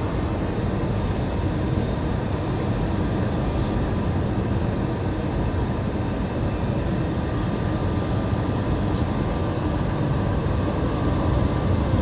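Steady cabin noise inside an Airbus A320 on approach: its engines and the airflow make a deep, even rush, with a few faint steady tones above it.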